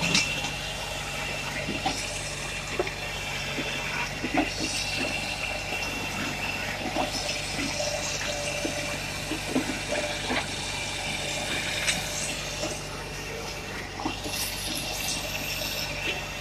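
Tractor-driven Hakki Pilke firewood processor at work: a steady engine and machine hum with a high whine, broken by irregular knocks and clunks as birch logs are fed, cut and split.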